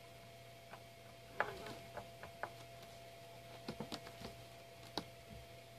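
Faint, scattered clicks and taps of small 3D-printed TPU bolt covers being pushed and screwed onto bolt ends inside a cardboard barrel, with a quick cluster of them a little before the four-second mark.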